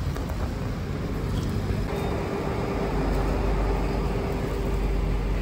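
Road vehicle noise: a steady engine rumble, with a steady hum joining about two seconds in.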